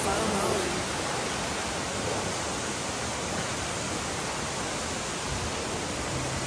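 Steady rushing of water from a waterfall.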